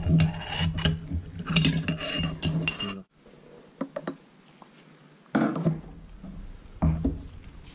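A 1:64 die-cast Hot Wheels Chevrolet Silverado rattling and clinking against the inside of a glass jar of paint thinner as the jar is swirled, for about three seconds. The sound then cuts off suddenly, and a few separate light knocks follow as the car is set down on the table.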